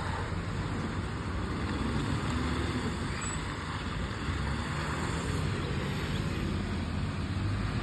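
Engine of an Autocar ACX side-loader recycling truck running steadily as the truck drives off down the street, a constant low rumble.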